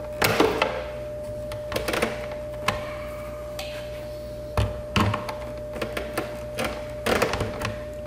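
Irregular clicks and knocks of a stiff number-10 copper ground wire being bent and pushed into the terminal of a Tesla Wall Connector, with the loudest knocks about five seconds in. A steady faint tone and low hum sit underneath.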